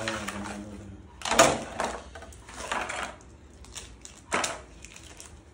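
Handling noise: a few separate sharp taps and rustles, about four in all, the loudest about a second and a half in and another near four and a half seconds.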